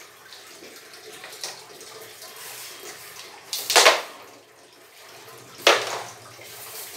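Water splashing, with two louder splashes about three and a half and five and a half seconds in.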